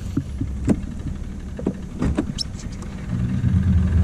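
Boat motor running at low speed, growing louder about three seconds in, with a few scattered knocks and clicks on the boat.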